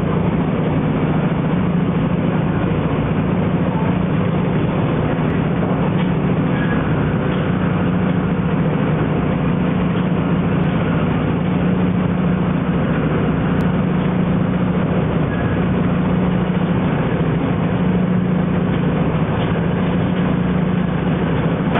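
Steady, even rumble of a train in motion, heard from inside a carriage, with a constant low hum.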